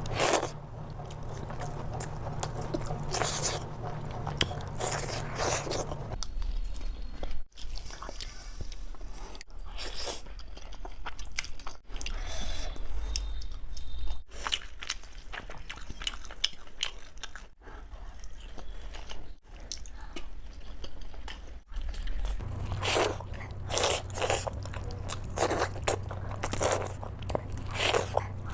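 Close-miked eating sounds: a person biting into and chewing food by the mouthful, with short sharp crunches. It comes in a run of short clips joined with abrupt cuts.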